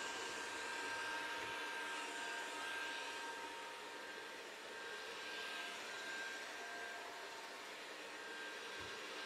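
Neatsvor robot vacuum cleaner running: a steady whir with a thin, high, steady whine.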